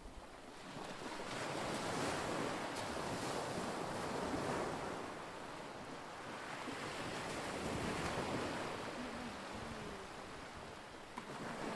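Lake waves washing against the shore, with wind on the microphone; the noise swells and eases every few seconds.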